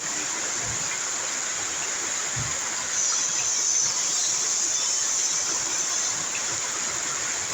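Steady hiss of falling rain, getting a little louder about three seconds in.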